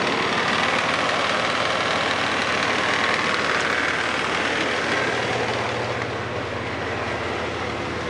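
Chevy Blazer's 4.3-litre V6 engine running steadily. About five seconds in it gets slightly quieter and a low steady hum comes in.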